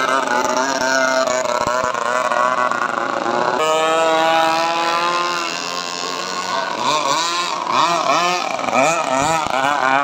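Several radio-controlled racing powerboats with modified two-stroke chainsaw engines running at once. A high, buzzing engine note slides slowly down about a third of the way through, and near the end the revs rise and fall again and again as the boats race.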